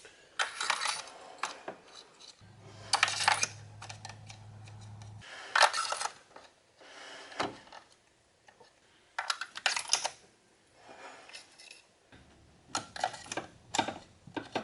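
Metallic clinks and scraping from a spark plug socket and extension being handled as new spark plugs are threaded in by hand, in irregular bursts with short pauses.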